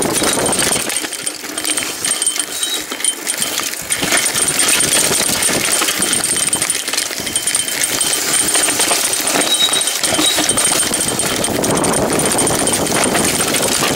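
Mountain bike descending a rough dirt forest trail at speed: a steady noisy rush of tyres rolling over dirt and stones, mixed with the rattle of the bike over bumps.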